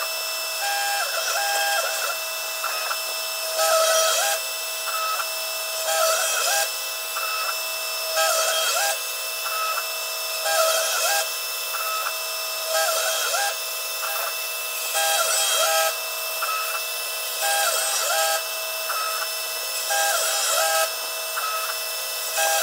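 DIY CNC router cutting oak: the spindle runs steadily at about 10,000 rpm with a 1/8-inch four-flute carbide end mill. A whine steps up and down in pitch in a pattern that repeats about every two seconds, with a louder rasp of cutting on each pass as the end mill traces the oval outline of the dog tag.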